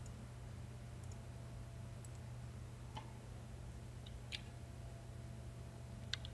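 Faint computer mouse clicks every second or so, then a quick cluster of keyboard keystrokes near the end as a filename is typed, over a steady low hum.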